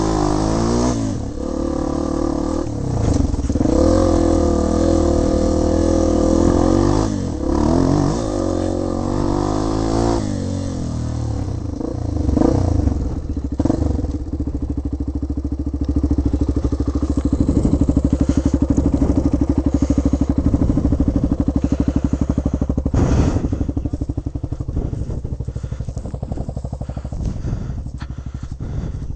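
Single-cylinder four-stroke trail bike engine revving up and down for the first ten seconds or so, then running steadily at low revs.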